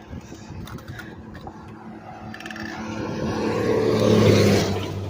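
A car passing close by: its engine hum and tyre noise swell to a peak about four seconds in, then fade away.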